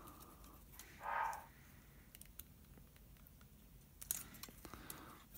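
Faint clicks and rustling of fingers handling a small plastic micro-quadcopter frame and its tiny brushed motor, with a brief louder sound about a second in and a small cluster of clicks about four seconds in.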